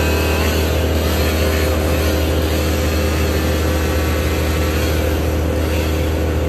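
Steady drone of heavy machine engines, a 300 hp Bandit brush chipper and a mini loader running together with constant low engine tones and no change in pitch.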